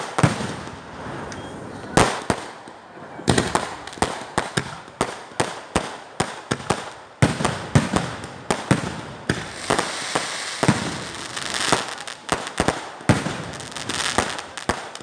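Fireworks going off: a rapid, irregular string of sharp bangs, several a second at times, with a hiss between them.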